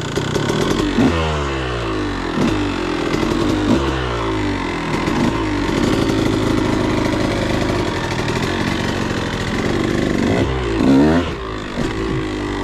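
KTM 150XC's two-stroke engine being ridden, revving up and dropping back again and again as the bike pulls away and shifts, then running steadier before another quick rev near the end.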